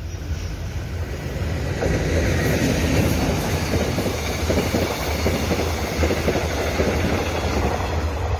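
Mugunghwa-ho passenger train, locomotive-hauled coaches, passing on the main line, its wheels rumbling and clattering on the rails. The noise builds about two seconds in and stays loud as the coaches go by.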